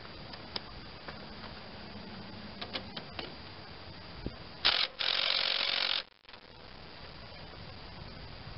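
A few light clicks, then a short blip and about a second of a cordless power tool spinning a socket on a starter mounting bolt, cutting off abruptly.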